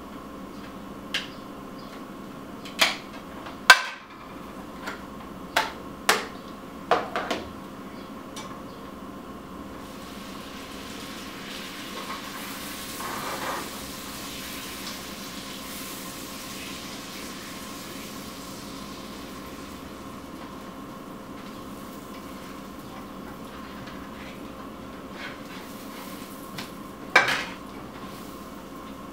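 Kitchen utensils and objects knocking and clattering against a frying pan on a gas stove: a string of sharp knocks over the first several seconds, a soft sizzling hiss in the middle, and one more knock near the end, over a steady hum.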